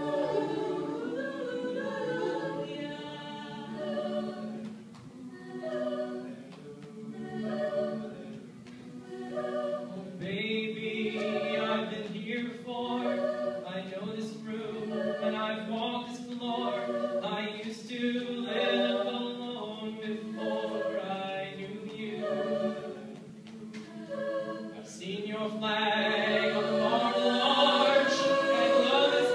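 Mixed-voice a cappella group singing, with a soloist on a microphone over the backing voices and no instruments. The singing swells louder over the last few seconds.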